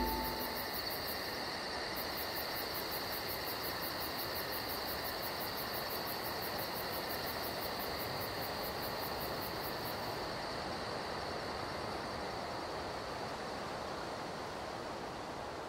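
Steady hissing ambience with a very high, fast, evenly pulsing chirp, cricket-like, that stops about ten seconds in, over a steady high hum; the whole fades slowly toward the end.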